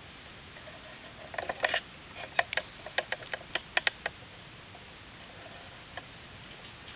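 A run of sharp, irregular clicks and ticks over a faint steady hiss, clustered between about one and four seconds in.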